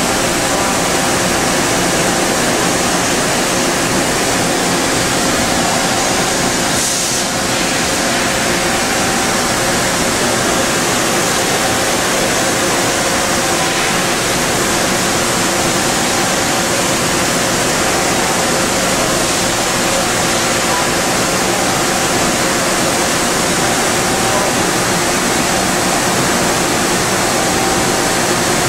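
Okuma MC-50H CNC horizontal machining center running, a steady loud hiss with faint steady tones under it and a short change in the noise about seven seconds in.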